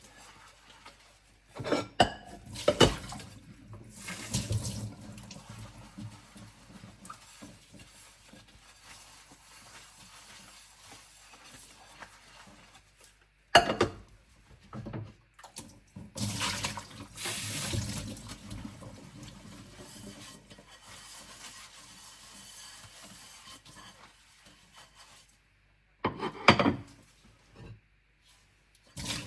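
Ceramic dinner plates being hand-washed in a kitchen sink: sharp clinks of plates knocking together a few times, quiet scrubbing, and a tap running in short spells, the longest a little past halfway through as the plates are rinsed.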